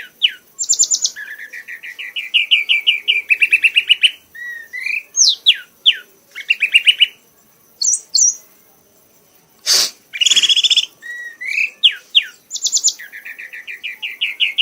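Kanis merah songbird singing a repeated phrase: a short upslurred whistle, then a fast, even trill of a dozen or so notes, with a few high chips between phrases. A single sharp click about ten seconds in.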